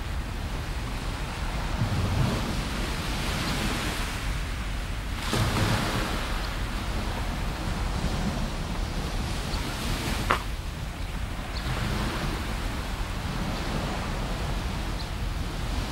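Small waves washing onto a sandy beach, the surf swelling every few seconds over a steady low wind rumble on the microphone, with a short sharp click just past the middle.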